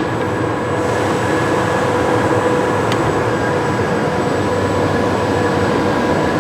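Steady machine hum with several steady tones and no change in level, from machinery running in the workshop, with a single faint click about three seconds in.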